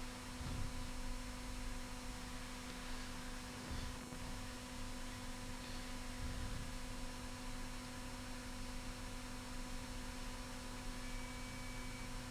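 Steady electrical mains hum, a low tone with higher overtones, under a few faint soft handling thumps.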